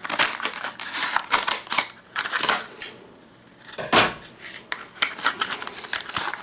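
Small clicks, knocks and rustling from a brass padlock and its keys and packaging being handled, with one louder knock about four seconds in.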